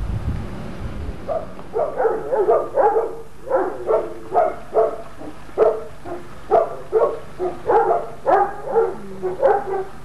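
A dog barking repeatedly, short barks about two a second, starting just over a second in.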